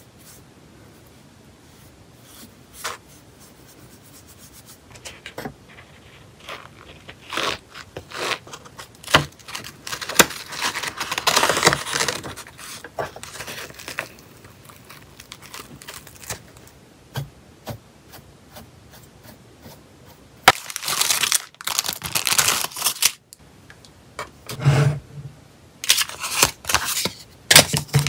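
A sheet of paper being handled, rustling and crackling with a few sharp tearing-like bursts. Aluminium foil nail-remover wraps crinkle near the end.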